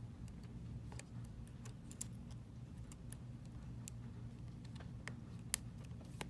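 Faint, irregular small clicks from handling iPhone X parts and pressing flex-cable connectors onto the board, one sharper click about five and a half seconds in, over a steady low hum.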